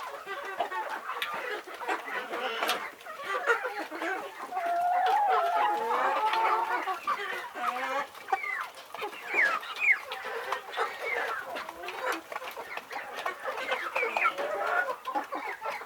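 A flock of chickens clucking and calling over one another, many short calls overlapping. A longer, louder drawn-out call runs from about four and a half to seven seconds in.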